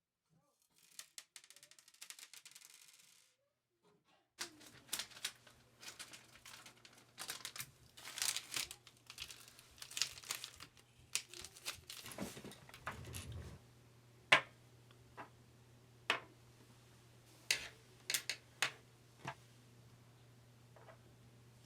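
Keyboard parts and packaging being handled: irregular sharp plastic clicks and snaps mixed with crinkling and rustling. A short rustle comes about a second in, and a low steady hum starts with the clicking about four seconds in.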